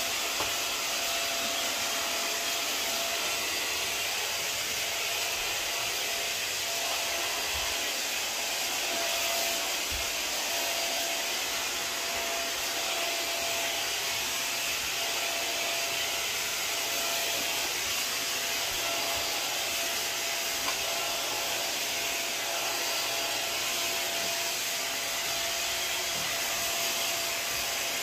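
WAP Wapore Up steam vacuum mop running steadily as it vacuums and mops a hard floor: an even rushing suction noise with a constant motor whine on top.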